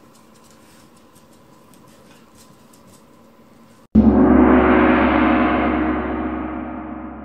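Faint room sound, then about four seconds in a gong is struck once, loud and sudden, its deep ring slowly dying away.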